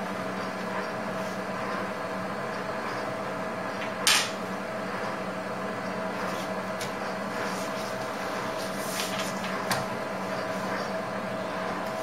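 A sheet of paper handled and rustled by hand, with one sharp, loud rustle about four seconds in and softer ones near the end, over a steady machine hum.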